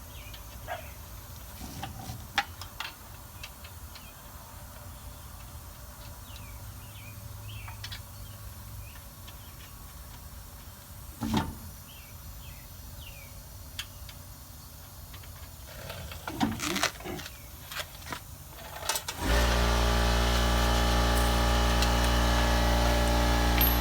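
Scattered clicks and knocks of a wheel and its lug nuts being handled, with faint chirps in the background. About 19 seconds in, a loud, steady motor hum starts suddenly and keeps running.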